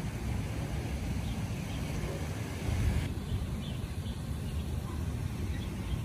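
Steady low outdoor rumble with a few faint, short bird chirps now and then; the higher hiss thins about three seconds in.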